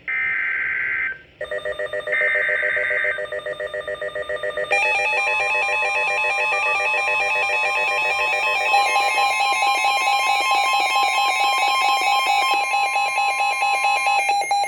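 NOAA Weather Radio alert: two short buzzy bursts of SAME digital header data, then a rapidly pulsing electronic alarm from the weather radio receiver. About five seconds in, a steady tone of about 1 kHz joins the alarm and stops shortly before the end: the warning alert tone announcing a severe thunderstorm warning.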